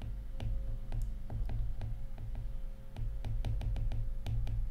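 Stylus tapping and dragging on a tablet screen during handwriting: an irregular run of light clicks, several a second, over a low rumble.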